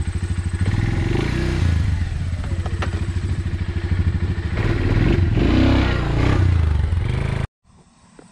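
Suzuki KingQuad 400's 376 cc single-cylinder four-stroke engine idling with a pulsing beat. It is revved up and back down twice, about a second in and again around five seconds in, while the transmission sits out of gear, so the quad doesn't move. The sound cuts off suddenly near the end.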